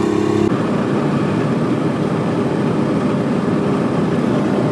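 Semi truck's engine and tyre noise heard inside the cab while driving at highway speed. About half a second in, a steady engine hum gives way to an even road noise.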